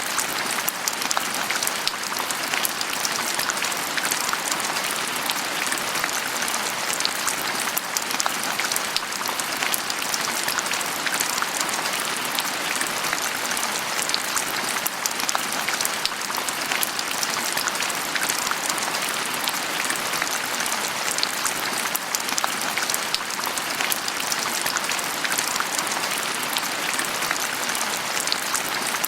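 Steady rain falling on a surface, with many fine pattering drops.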